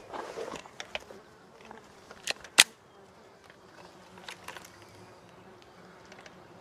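Faint buzzing of insects over a quiet outdoor background. About two and a half seconds in come two sharp clicks a moment apart, and the second is the loudest sound.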